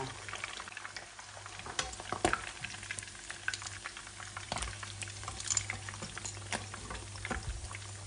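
Fish deep-frying in a wok of hot oil, the oil crackling steadily with many small pops, while metal tongs and a slotted skimmer clink and scrape against the pan as the fish is turned and lifted; the sharpest clink comes about two seconds in.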